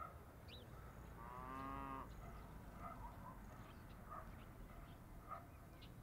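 A cow mooing once, a single call of just under a second starting about a second in, faint over a quiet rural background with small scattered chirps.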